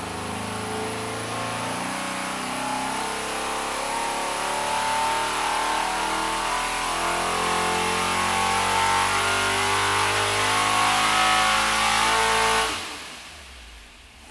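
401ci Gen 1 small-block Chevy V8 on an engine dyno making a pull under load, its pitch and loudness rising steadily as the rpm climbs for about twelve seconds. About thirteen seconds in, the sound drops away sharply.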